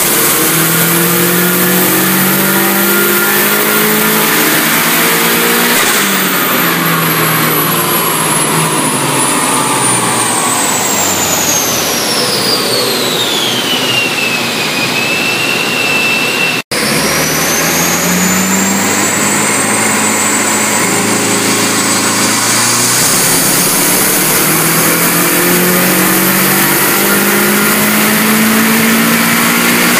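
Turbocharged Mazda FE3 2.0-litre four-cylinder running loudly on a chassis dyno. A high whine falls steadily in pitch as a run ends and winds down, then after a sudden break about 17 seconds in, the whine and the engine note rise again as the engine is brought back up.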